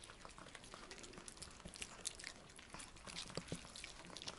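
Chihuahuas chewing pieces of sweet bell pepper taken from a hand: faint, irregular crunching and smacking clicks.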